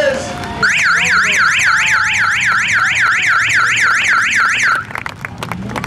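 Electronic yelp siren wailing rapidly up and down, about three or four sweeps a second, marking the end of the heat just after the winner is called. It cuts off sharply near the end, leaving faint clicks.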